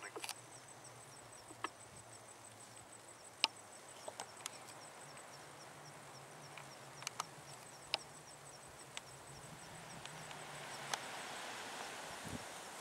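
Quiet bush ambience: a faint high tick repeating evenly throughout, a low steady hum, and scattered sharp clicks, with a low thud near the end.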